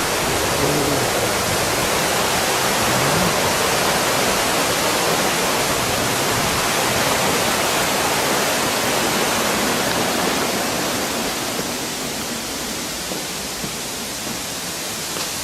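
Waterfall and mountain stream rushing steadily, the water running high. The sound eases slightly about two-thirds of the way through.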